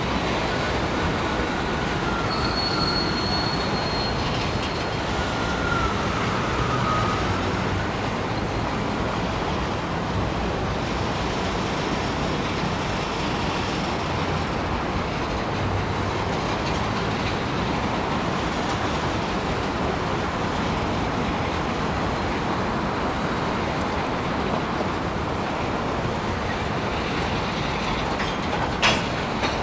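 Freight cars rolling steadily over a steel girder trestle: a continuous rumble of steel wheels on rail. High thin wheel squeals come and go a few seconds in, and a single sharp clank sounds near the end.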